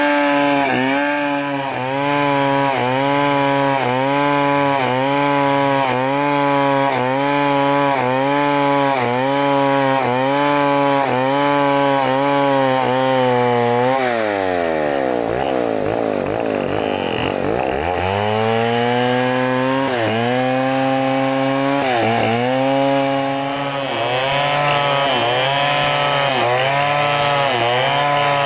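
New West 070 chainsaw, a large two-stroke, running at high speed while cutting through a log. Its note wavers up and down about one and a half times a second as the bar bites and eases. About halfway through the pitch drops steeply and climbs back over a few seconds.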